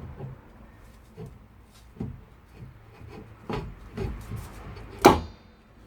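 Metal car parts and tools being handled during a wheel bearing fit: a few light knocks and clatters, then one loud sharp metallic clank with a short ring about five seconds in.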